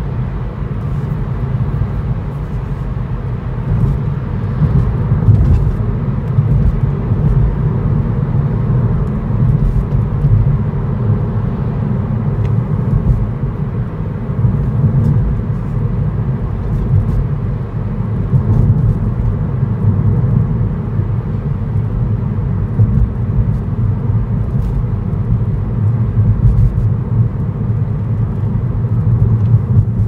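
A car driving along a road: a steady low rumble of tyres and engine, with faint scattered ticks.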